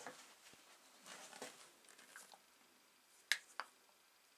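Quiet handling on a workbench: a soft scrape about a second in, then two sharp clicks close together near the end as a metal tin of linseed oil is picked up and tipped onto a sponge.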